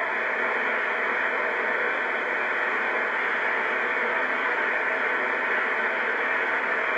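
Steady rushing noise of river rapids, unchanging throughout, heard through old VHS camcorder audio.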